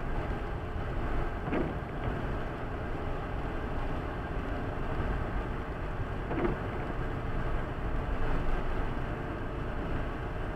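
Steady road noise inside a car's cabin at about 80 km/h: the tyres hissing on a wet road under the low drone of the engine.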